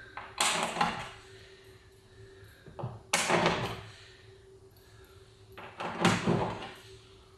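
Rivet gun setting rivets in the kick plates low on a bus's steel side wall: three sharp cracks about three seconds apart, each trailing off briefly, over a faint steady hum.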